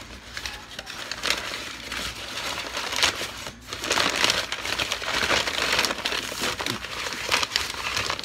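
Paper sack of tile adhesive being handled and crumpled, an irregular crinkling rustle of stiff paper that comes and goes as the bag's folded top is gripped and squeezed.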